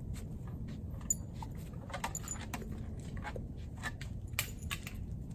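A Doberman puppy moving about on concrete: scattered light clicks and jingles, over a steady low outdoor rumble.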